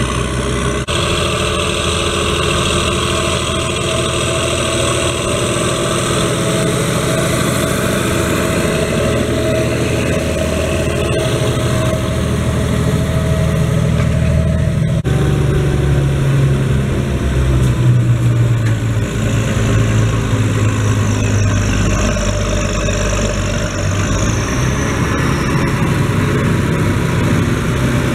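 Schlüter Profi Trac 3500 TVL tractor's turbocharged, intercooled 320 hp MAN diesel engine running steadily under load while pulling a disc harrow through the soil. The tone shifts abruptly about a second in and again about halfway through, as the sound is heard from different spots on the machine.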